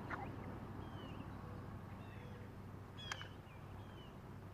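Several short, faint bird chirps over a low steady hum, the clearest about three seconds in.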